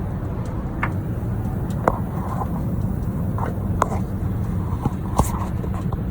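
A few sharp metallic clinks, spaced a second or more apart, as a socket wrench is worked on the nut of the starter's power cable, over a steady low rumble.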